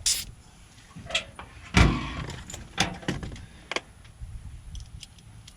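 Sharp metallic clicks and knocks from a door lockset being handled and worked by hand, with one heavier thump about two seconds in.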